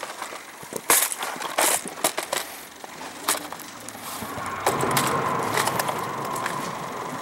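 Hard plastic tackle case being handled and opened: a series of sharp clicks and knocks from its lid and latches. A steady hum comes in about halfway through and keeps going.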